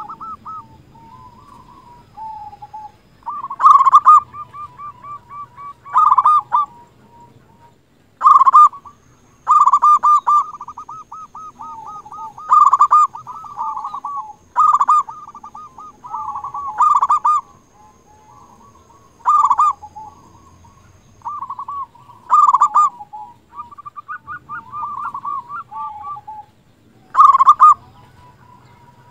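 Zebra dove (local perkutut) cooing over and over: rolling, trilled coos with a loud accented phrase every two to three seconds and softer quick trills in between.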